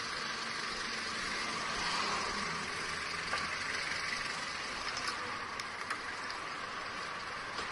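Steady vehicle and road noise: an engine running under a broad hiss, with a few faint knocks.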